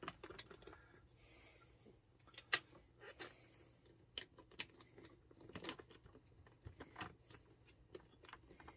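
Faint plastic clicks and taps of a Bluetooth intercom's mounting clip being handled and pushed onto the shell of a motorcycle helmet, with one sharp click about two and a half seconds in.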